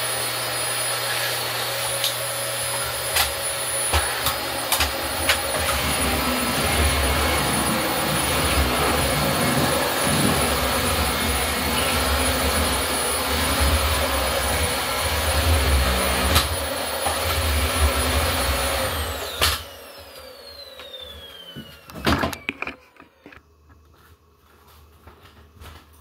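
A 2008 Dyson DC25 Animal ball upright vacuum cleaner runs steadily with a thin high whine, with occasional clicks and knocks as it is pushed over the floor and rug. About three quarters of the way in it is switched off, and the motor winds down in a falling whine, followed by a few knocks.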